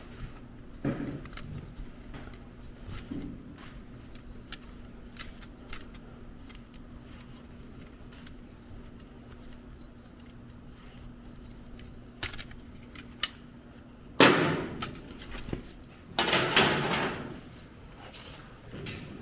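Scattered light clicks and knocks of parts and tools being handled, over a steady low hum, with two louder clattering bursts near the end.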